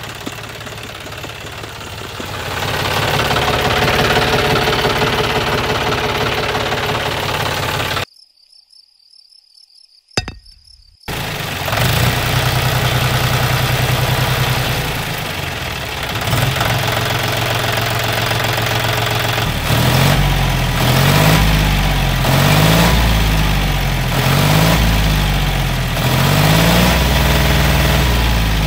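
Diesel tractor engine running, cutting out for about three seconds near the middle; in the last part its speed rises and falls repeatedly, about once a second.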